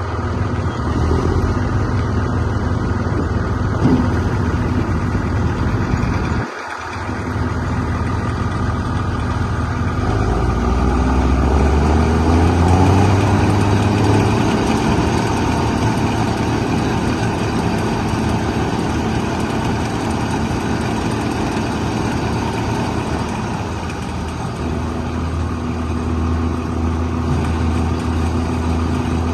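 Combine harvester's diesel engine running steadily, with a short break about six seconds in. About ten seconds in, its pitch rises as the engine is throttled up, then it holds a steady high run.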